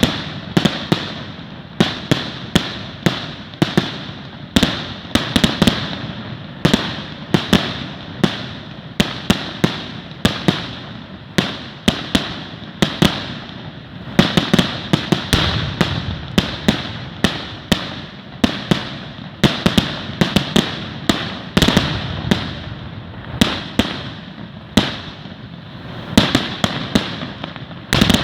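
Fireworks going off in a dense barrage: sharp bangs several times a second with crackling between them, without a break.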